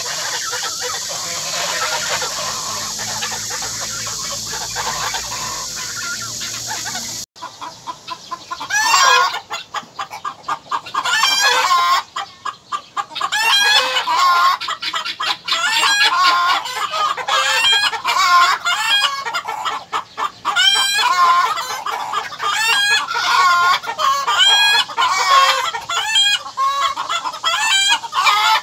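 For about the first seven seconds a steady high hiss, then an abrupt change to chickens clucking and calling, many calls one after another.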